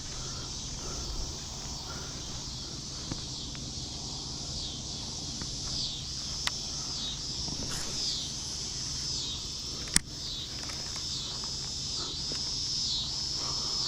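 Insects singing in a steady, high-pitched, pulsing chorus. A single sharp click about ten seconds in.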